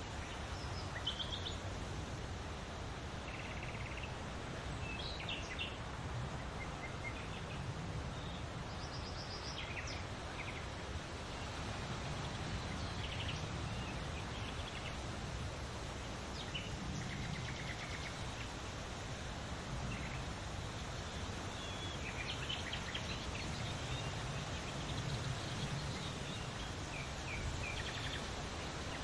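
Leaves rustling in a steady wind, with short bird chirps and calls scattered throughout.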